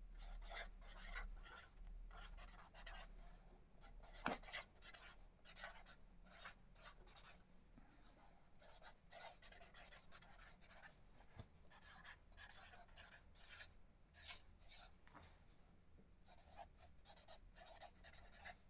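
Faint scratching of writing on paper, in quick short strokes with brief pauses between runs.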